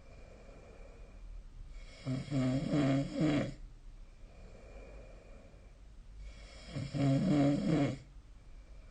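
A person snoring in sleep: two loud, pitched, rattling snores about four and a half seconds apart, each lasting one and a half to two seconds, with softer breathing between them.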